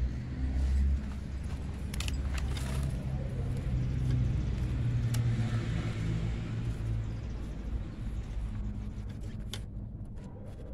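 Low rumble that swells and eases off, with a few light clicks and taps as a wire birdcage door and a wooden perch stick are handled.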